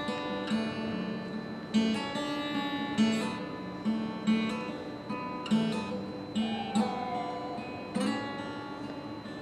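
Acoustic guitar playing a song's instrumental intro: chords strummed and let ring, with a fresh stroke every second or so.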